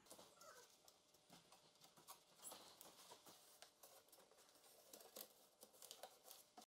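Faint rustling and crinkling of a sheet of paper wallpaper being handled and pressed into a recessed panel by hand, with small irregular taps and clicks.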